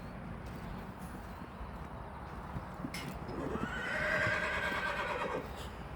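A horse whinnies once, a long neigh that falls slightly in pitch, starting about three and a half seconds in, over a steady low background noise.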